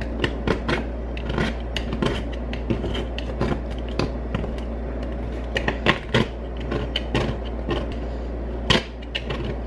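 Irregular scraping and clicking as fingers pick at and prise off dried paint on a painting palette, over a steady low hum.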